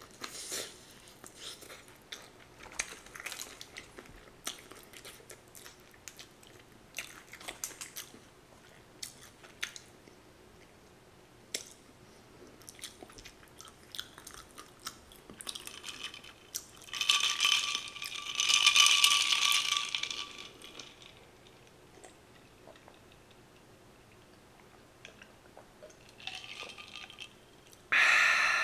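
Close-up chewing of crispy fried chicken: many small crackling crunches through the first half. A loud rustling burst lasting a few seconds comes past the middle, and near the end a sudden loud crinkle of aluminium foil around the chicken.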